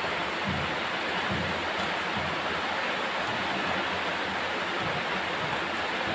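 Heavy rain falling: a steady, even hiss, with a few faint low knocks underneath.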